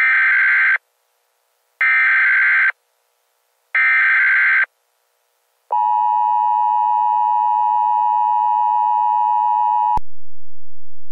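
Emergency Alert System broadcast tones: three short bursts of warbling SAME data tones about two seconds apart, then the steady two-tone attention signal for about four seconds. The attention signal cuts off suddenly, leaving a low hum.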